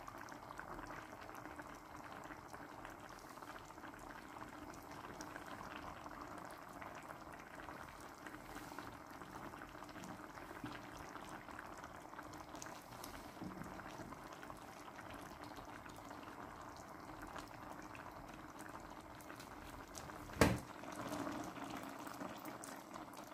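Sauce simmering in a wide stainless steel pan of meat-filled dough dumplings, a soft, steady bubbling. A single sharp knock comes near the end.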